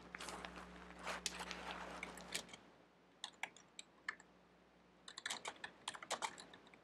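Computer keyboard being typed on in short runs of key clicks: a stretch of typing, a pause with a few single keystrokes, then another quick flurry about five seconds in.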